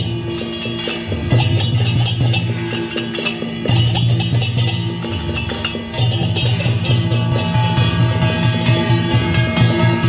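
Music with a steady percussion beat over sustained low notes.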